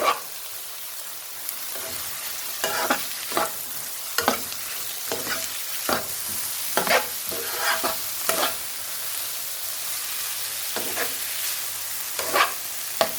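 Carrots and green beans frying in a pan with a steady sizzle, while a spatula scrapes and knocks against the pan at irregular intervals as they are stirred.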